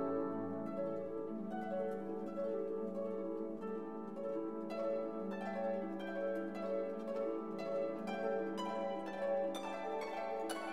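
Background music: plucked string notes over held chords, with the plucked notes coming more often near the end.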